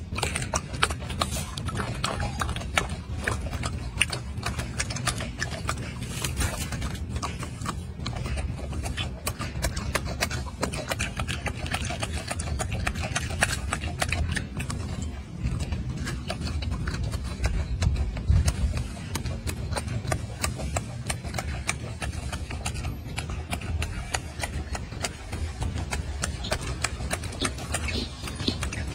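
Golden snub-nosed monkey chewing orange close to the microphone: a dense run of wet clicks and smacks over a low rumble.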